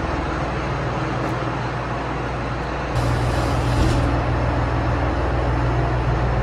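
Tractor's diesel engine running steadily with a low drone; the drone gets louder about three seconds in.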